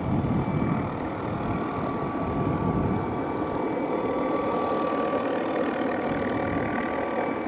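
MD 520N NOTAR helicopter hovering: its turbine engine gives a steady high whine over the rumbling beat of the main rotor. The whine grows clearer about a second and a half in.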